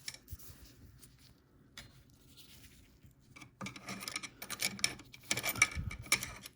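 Small metal parts of a vintage sewing machine scraping and clicking against each other as the feed dog is worked loose. It is faint at first, then from about three and a half seconds in a busy run of rubbing and clicks.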